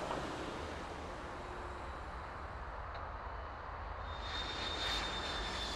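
Airport background: a steady rumble of jet aircraft engines and road traffic. About four seconds in, a high jet-engine whine comes in and slowly drops in pitch.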